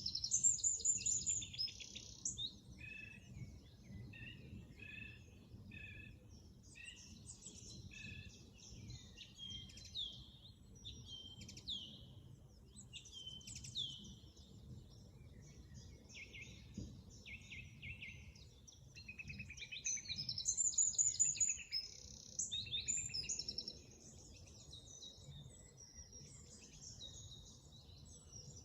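Dawn chorus of woodland songbirds: several birds singing at once, a mix of quick chirps, trills and short phrases, with bursts of louder song at the start and again about two-thirds of the way through, over a faint low rumble.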